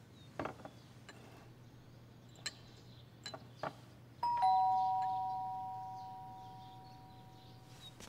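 A two-tone ding-dong doorbell rings once, a higher note and then a lower one, both ringing on and slowly fading. A few soft clicks come before it.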